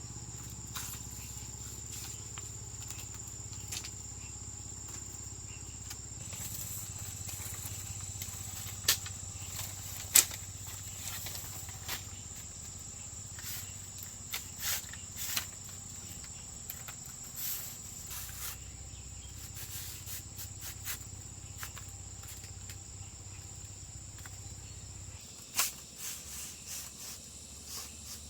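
Insects chirring steadily in one high, even tone, with scattered sharp knocks, the loudest about nine and ten seconds in and again near the end.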